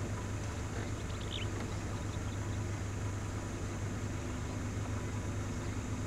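A vehicle engine idling steadily: an even low hum under a faint hiss.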